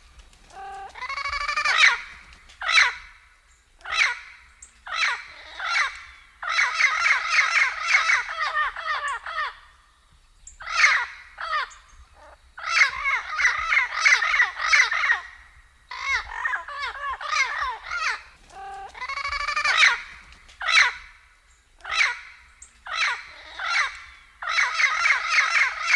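Turquoise-fronted amazon parrot (Amazona aestiva) calling. Short single calls alternate with runs of rapid repeated notes, each run lasting two to three seconds.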